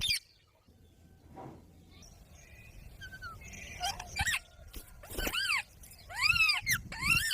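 Pet green parrot calling: after a few quiet seconds, a run of about five short, shrill calls, each rising and then falling in pitch, coming closer together and louder toward the end.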